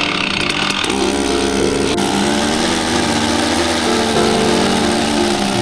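Stihl MS 880 two-stroke chainsaw running steadily under load as it cuts through a large log, with background music over it.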